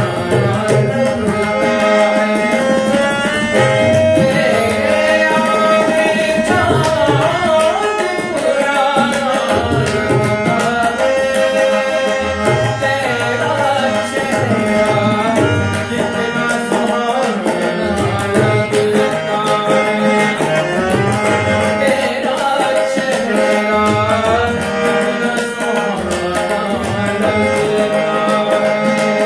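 A ghazal sung by a male voice with harmonium and tabla accompaniment. The harmonium holds sustained reed tones under the melody, and the tabla keeps up a steady rhythm with deep bass strokes from the bayan.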